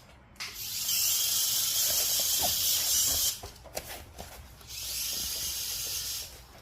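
Small geared motors of a Neobot kit robot whirring as it drives, in two runs: about three seconds, then a pause, then about a second and a half, the second run a little quieter.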